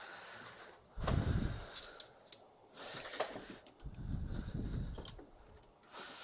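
Handling noise from work on a small Martini rifle's rear sight: light metal clicks and scrapes, with a couple of duller knocks about a second in and again around four seconds in.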